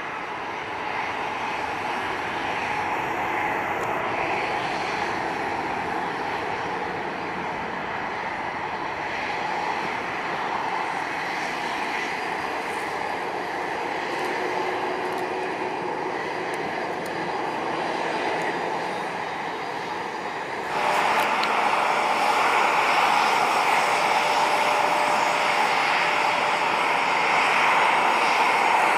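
Boeing 787 jet engines running as the airliner moves along the runway, a steady rushing noise. About two-thirds of the way through it cuts suddenly to the louder, closer, steady engine noise of a Bombardier CRJ-200 regional jet taxiing.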